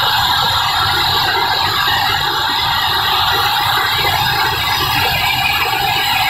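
Chana dal mill machinery running: a loud, steady mechanical din from electric-motor-driven processing machines, with no break or change.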